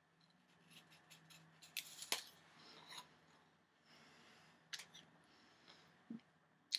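Faint crunches of biting into and chewing a piece of raw fruit: a few short crackles spread out, the strongest about two seconds in and another near the end.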